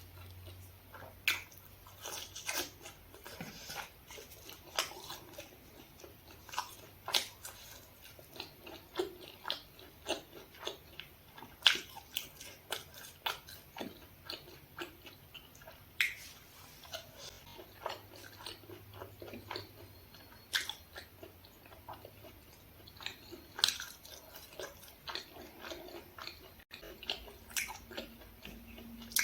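Close-miked eating: a person biting and chewing, a steady run of short wet mouth clicks and small crunches at irregular intervals.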